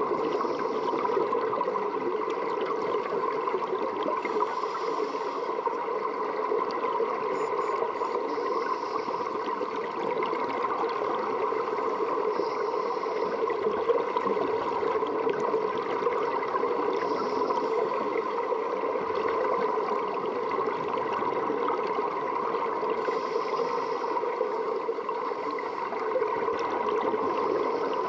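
Underwater sound in a swimming pool, recorded by a submerged camera: a steady hum with a rushing wash of water noise, and a faint hiss of a scuba diver's exhaled bubbles every few seconds.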